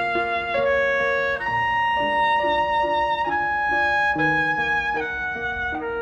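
Instrumental background music: a slow melody of held notes, each changing pitch about every second.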